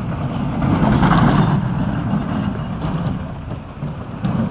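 Wheels of a Gerstlauer bobsled coaster car rumbling steadily along the steel track. The rumble swells to its loudest about a second in, then eases a little.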